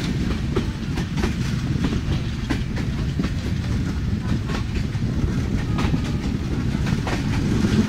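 Passenger train running at speed, heard from aboard: a steady low rumble of wheels on rails, with irregular clicks as the wheels cross rail joints.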